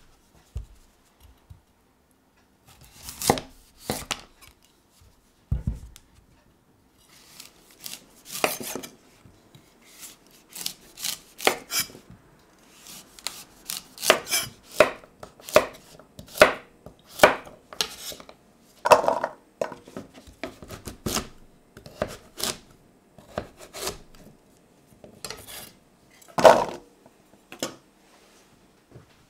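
Chef's knife cutting up a celeriac on a wooden cutting board: a long series of irregular knocks as the blade slices through the firm root and strikes the board.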